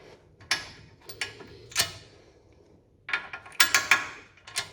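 Sharp metallic clicks and clanks of hand tools and bolts during work on a car's front hub and suspension: a few single clicks, then a quick cluster of them about three seconds in.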